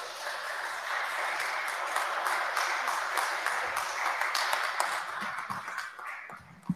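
Congregation applauding, the clapping fading out after about six seconds, with a single thump near the end.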